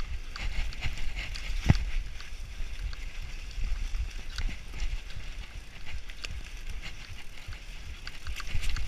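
Mountain bike descending a forest dirt trail: tyres rolling over dirt and roots with the bike rattling and knocking, one hard knock about two seconds in, over wind rumble on the microphone.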